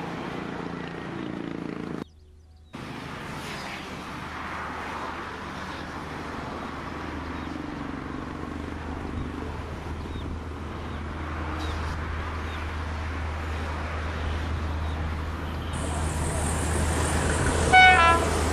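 An approaching electric passenger train running with a low hum that slowly grows louder; the sound cuts out briefly about two seconds in. Near the end the WAP-7 electric locomotive sounds its horn.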